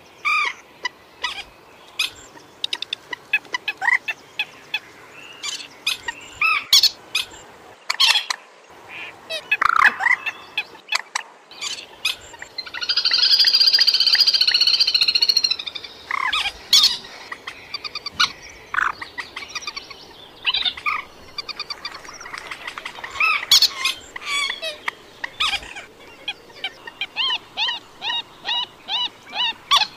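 Moorhen calls: a string of short, sharp calls, one long rasping call lasting about two and a half seconds near the middle, and a quick run of short repeated calls near the end, about two or three a second.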